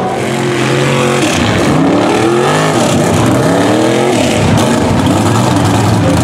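Lifted mud trucks' engines revving hard under load as they churn through deep mud, the pitch climbing and dropping with the throttle, more than one engine at a time.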